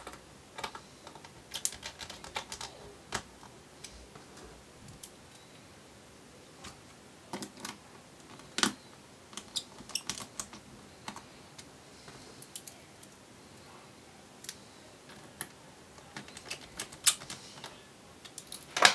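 Irregular small clicks and ticks of a small Phillips screwdriver driving screws into a laptop's battery mounting points and chassis, with light metal-and-plastic taps as the bit seats in each screw.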